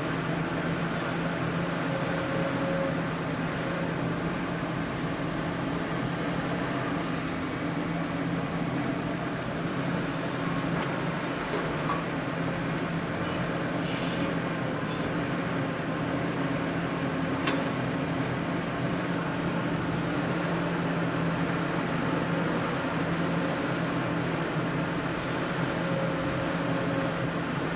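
Excavator's diesel engine running steadily at a constant pitch, with a couple of faint clicks in the middle.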